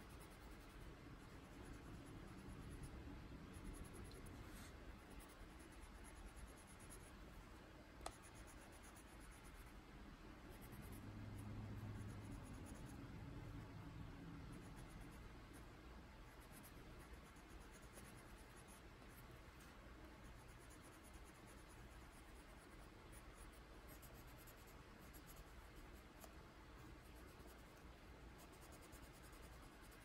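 Faint scratching of a Prismacolor coloured pencil on paper, many small shading strokes. One small tick about eight seconds in.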